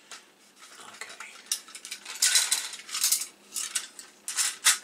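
Thin sheet-metal RF shield from a Commodore 64C rattling and scraping as it is handled and laid on a workbench: a string of tinny clatters, the sharpest clank near the end.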